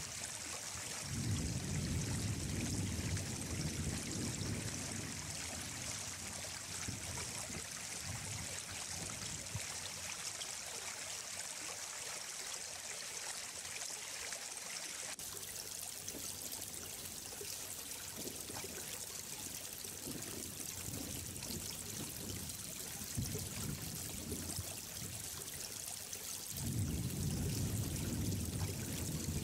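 Running water flowing and trickling steadily, with a lower, louder rush swelling up about a second in and again near the end.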